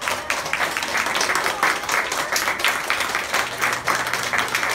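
Applause: many people clapping together, loud and steady, from a classroom of children.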